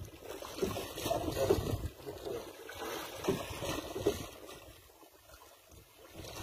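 Wind and sea noise aboard a small fishing boat at sea: uneven gusts buffet the microphone, louder in the first few seconds and easing off near the end.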